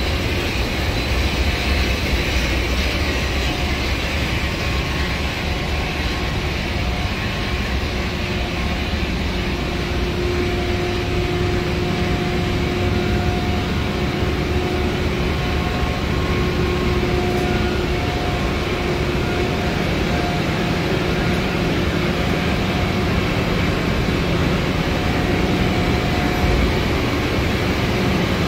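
Loud, steady machinery din of a cruise ship's engine room with its large main diesel engines running, a dense low drone with faint steady whining tones that come and go.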